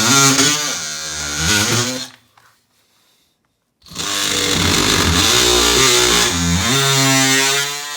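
Dewalt 18V cordless oscillating multi-tool cutting plasterboard: a loud buzz whose pitch wavers as the blade loads up. It stops about two seconds in and starts again about two seconds later.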